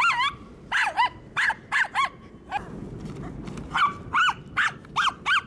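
Toy poodle giving about a dozen short, high-pitched yips in quick runs, each rising and falling in pitch: excited whining yelps.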